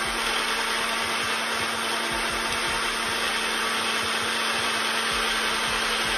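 Personal blender running at full speed, blending ice and almond milk into a protein shake; a steady whir with a low hum that cuts off abruptly at the very end.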